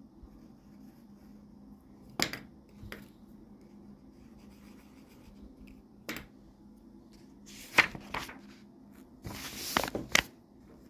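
Pencil on a paper test sheet: a few short taps and scratches as an answer is circled, then louder rustling of paper and book pages being handled near the end.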